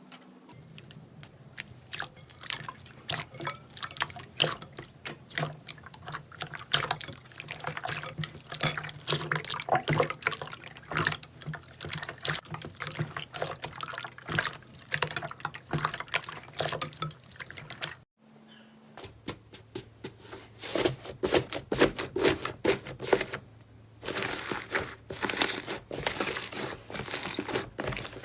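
Slime being squeezed and pressed by hand: a rapid run of wet clicks and pops, with a short break about eighteen seconds in before a second, denser stretch.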